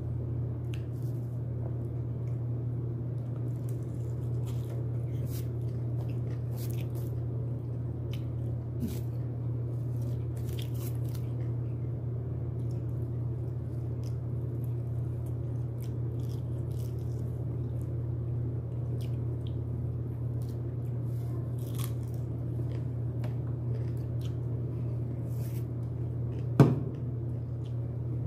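Someone chewing and biting into broasted chicken close to the microphone: scattered small clicks over a steady low hum, with one sharp knock near the end.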